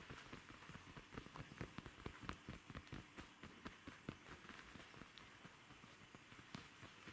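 Jack Russell terrier mother and puppy playing: faint, quick, irregular taps and scuffles of paws. They are busiest over the first four seconds or so, then thin out.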